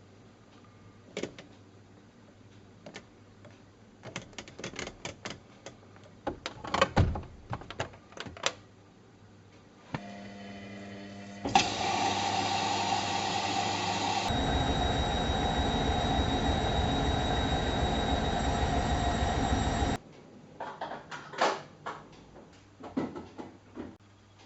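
Whirlpool washing machine being handled and run: clicks and knocks from its controls, door and drawer, then a steady mechanical hum and rushing noise for about eight seconds with a low rhythmic pulse in its second half. The noise cuts off abruptly, and more clicks follow.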